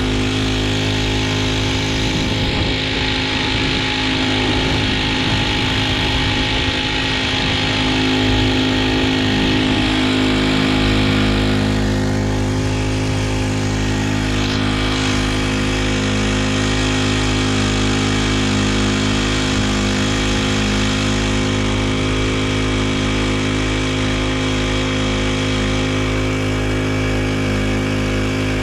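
Small Honda GX35 35cc four-stroke air-cooled engine on a kayak outboard drive leg, running steadily under way, heard from right beside the engine.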